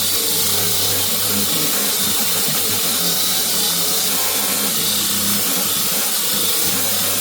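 A power tool running steadily, with a constant low motor hum under a bright, even hiss.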